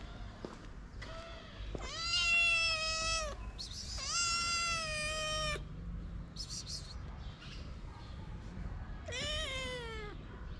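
Black-and-white kitten meowing: two long, loud meows about two and four seconds in, then a shorter meow that falls in pitch near the end.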